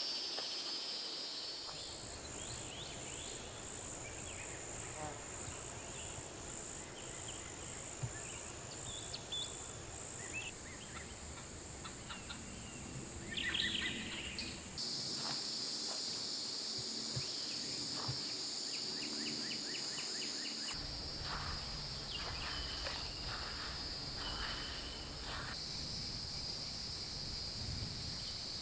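Outdoor woodland ambience of high-pitched insects droning steadily, with scattered bird chirps; the loudest chirp comes about halfway through. In the first third an insect call pulses about twice a second. The background shifts abruptly several times as it changes from one recording to the next.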